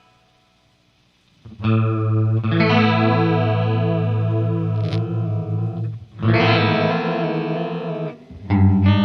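Les Paul Custom electric guitar through a Boss ME-50's chorus into miked Marshall DSL amps: chords let ring with a wavering, shimmering chorus. Quiet for the first second and a half, then a new chord about six seconds in and another near the end.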